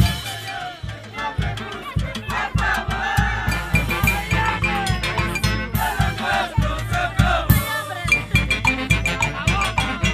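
A Latin dance band playing salsa-style music: steady drums and bass, with a melody line over it through the middle.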